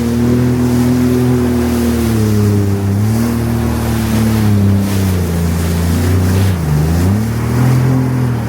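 Jet ski engine running at speed over the water, with water rush. Its pitch sags gradually, drops sharply about six and a half seconds in as the throttle eases, then climbs back.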